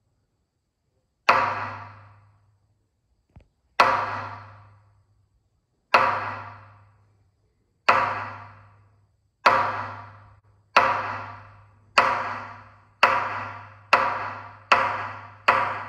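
Hokku, the Zen temple's large barrel-shaped Dharma drum, struck on its head with a wooden stick in a slowly quickening series: about eleven strokes, each ringing out with a low tone that dies away, the gaps shrinking from over two seconds to under a second. It is the signal calling the monks to morning sutra chanting and zazen.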